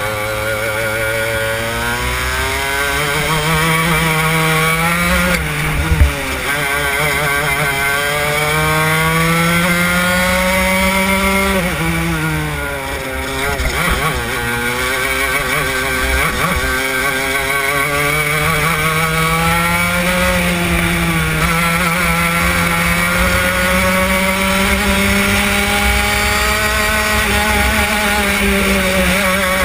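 Go-kart engine heard from on board during a lap, its pitch climbing as the kart accelerates along the straights and falling away as it slows for the corners, most deeply twice. A single sharp knock about six seconds in.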